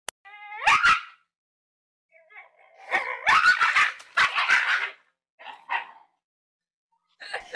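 Dog barking in bursts: a short rising yelp with a couple of barks near the start, a fast run of barks from about three to five seconds in, then two more and a fresh burst near the end.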